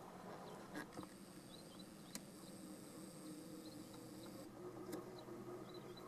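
Faint outdoor ambience dominated by an insect's high, steady buzz that starts about a second in and cuts off abruptly a little past the middle.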